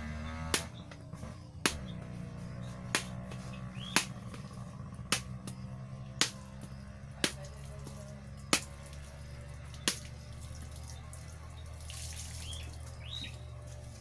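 Machete chopping into a young coconut's husk and shell: nine sharp strikes roughly once a second, stopping about ten seconds in. A steady low hum runs underneath.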